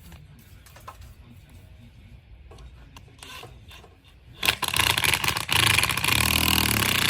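A few light handling clicks, then about four and a half seconds in an impact wrench starts up, stops briefly and runs on loudly, driving an 18-inch auger earth anchor into the ground.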